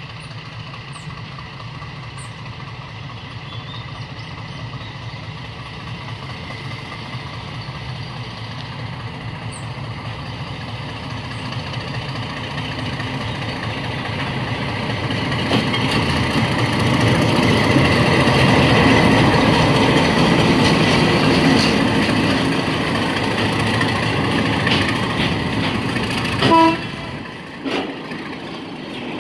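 ALCO DL535 diesel locomotive approaching and passing with a freight train of hopper cars, its engine growing steadily louder to a peak about two-thirds of the way through, then giving way to the rolling of the hopper wagons' wheels. A few short, sharp pitched sounds come near the end.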